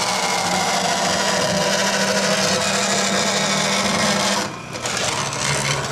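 Vertical bandsaw blade cutting through aluminum plate, a steady dense cutting noise over the saw's hum. About four and a half seconds in the cutting noise drops away and the saw keeps running more quietly.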